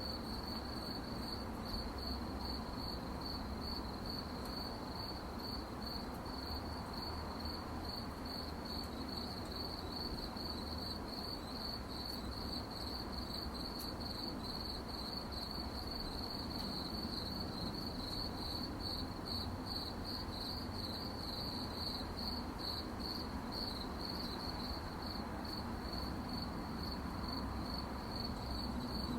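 Crickets chirping in a continuous, rapidly pulsing high trill, over a low steady background rumble.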